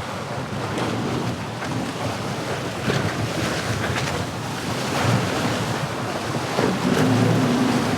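Wind and water rushing past a VO65 racing sailboat under way, with waves against the hull and wind buffeting the microphone. A few faint knocks come through, and it grows a little louder near the end.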